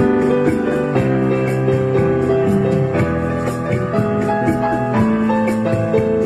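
Background music: a keyboard melody over a steady light percussion beat.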